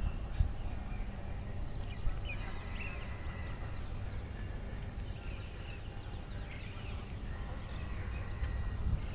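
Several small birds chirping, with many short, overlapping calls and quick pitch glides, over a steady low rumble.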